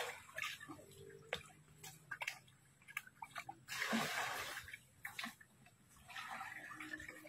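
Shallow, muddy pond water sloshing and splashing in short, scattered bursts as hands feel through it for fish, the loudest splash about four seconds in.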